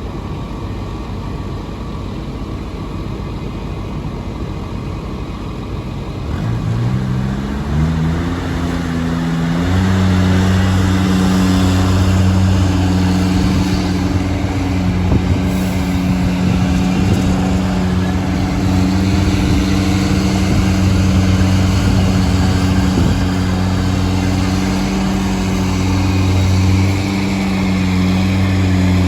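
An engine that starts to rise in pitch about six seconds in and settles within a few seconds into a steady, loud running hum.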